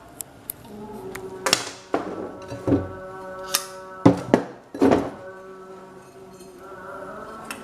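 A series of about ten sharp knocks and taps, a few of them loud near the middle, over steady background music.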